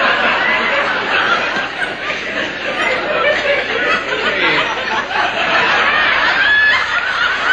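Studio audience laughing steadily, many voices chuckling and snickering together without a break.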